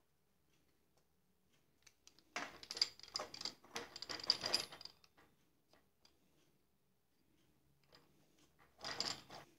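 Clicks and rattles of a miter saw's hold-down clamp being fitted by hand into a homemade extension bracket, plastic and metal parts knocking together. The handling comes in two bursts: a longer one about two seconds in and a short one near the end.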